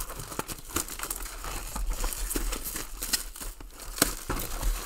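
Plastic trading-card pack wrappers being crinkled and torn open by hand, a continuous run of small crackles and rustles.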